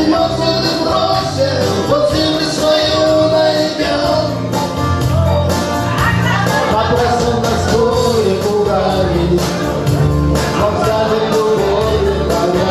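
A man singing a rock song with instrumental accompaniment and a steady beat.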